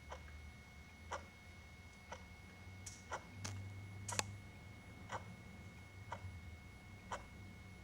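Clock ticking at about one tick a second. A few extra, sharper clicks come in between about three and four seconds in, the loudest just after four seconds, over a faint low hum.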